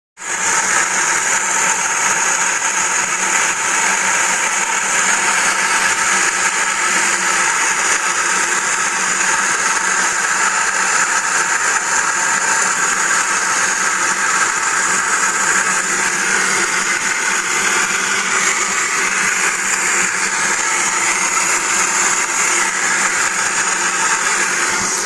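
Steady mechanical whirring with a high-pitched whine from a Mercedes G400: the unexplained weird noise the vehicle is making.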